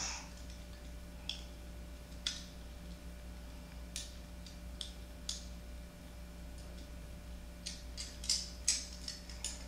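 Light, irregular plastic clicks and taps from a small toy car being fiddled with in a toddler's hands, with a quick cluster of them near the end.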